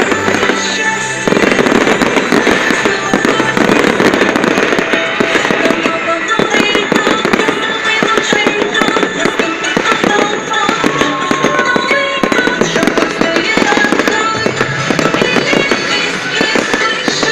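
Fireworks display going off in a dense, rapid string of bangs and crackles, with music playing throughout.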